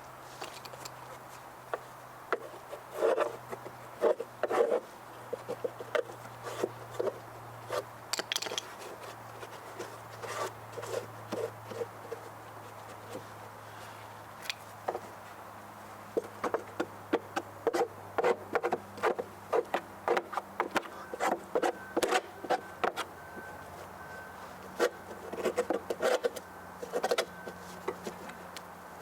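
Irregular clicks, knocks and scrapes of hand work, coming in clusters of several a second with a pause midway, over a faint steady low hum.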